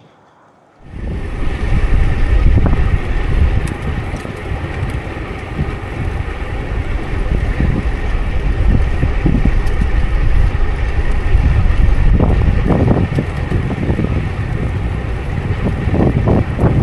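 Wind rushing and buffeting over the microphone of a chest-worn camera on a moving road bicycle, a heavy low rumble with gusty swells. It starts abruptly about a second in.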